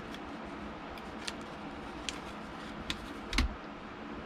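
A few light clicks and taps from small plastic parts of a Nintendo Switch Lite being handled during repair, four in all, the last and loudest a little after three seconds in with a dull knock.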